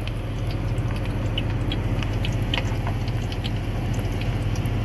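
Hot cooking oil sizzling around pieces frying in a deep pan, with scattered small crackling pops: the oil is hot enough to fry. A steady low hum runs underneath.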